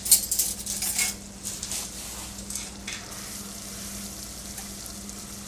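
Sugar and corn-syrup syrup boiling hard in a stainless steel saucepan, bubbling and sizzling. The loudest crackles come in the first second or so, then it settles into a steady hiss.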